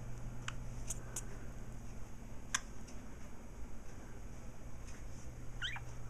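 Pet budgerigars giving a few short, sharp chirps and clicks, then a brief wavering chirp near the end, over a steady low hum.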